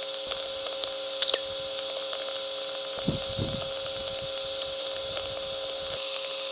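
VLF radio receiver audio: a continuous crackle of sferics, the static clicks from distant lightning, over a steady hum tone, with a brief low swoop about three seconds in.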